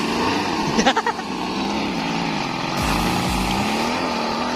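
Small gasoline engine of an RC boat running, its pitch rising and falling as the throttle is worked. A brief louder sound cuts in about a second in.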